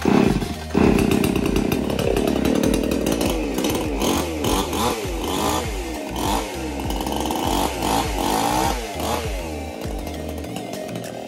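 Two-stroke gasoline chainsaw pull-started by its recoil rope, catching near the start and then revved up and down over and over, its pitch rising and falling about once a second. It settles to a lower, steadier run near the end.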